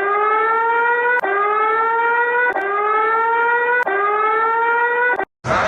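Electronic emergency alert siren tone: a slowly rising wail, each sweep lasting about a second and a quarter, repeated four times. It cuts off near the end and a different, noisier rising siren tone starts.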